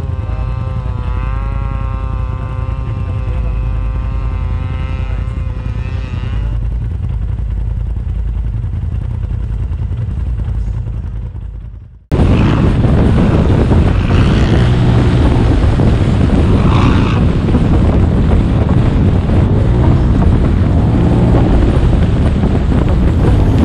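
Polaris RZR side-by-side engine running, its pitch wavering up and down and fading away. After a sudden cut about halfway, a loud, even rushing noise of the machine driving at speed.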